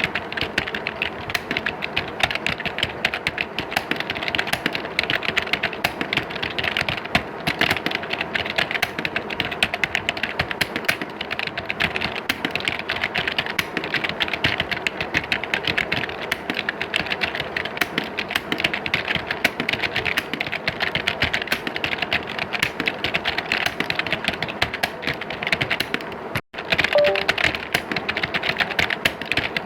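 Many computer keyboards being typed on at once, as in an exam hall: a dense, continuous clatter of key clicks. It cuts out for an instant about 26 seconds in.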